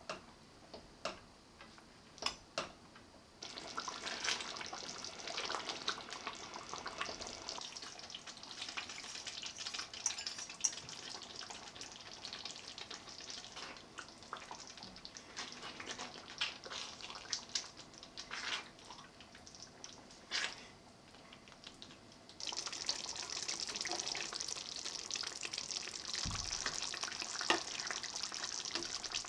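Kitchen cooking sounds: a few clinks and knocks of utensils, then a steady hiss of food frying in a pan, with scattered clicks from stirring. The sizzle turns clearly louder about three-quarters of the way through.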